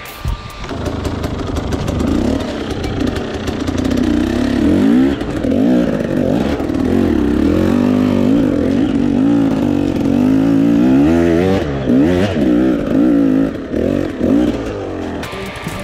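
Dirt bike engine revving up and down under load, its pitch rising and falling again and again as the throttle is worked, with a few brief drops near the end.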